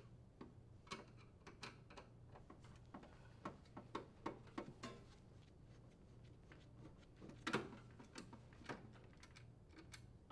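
Faint, irregular clicks and ticks of a Phillips screwdriver turning screws out of a sheet-metal access cover. A louder clack comes about three-quarters of the way through.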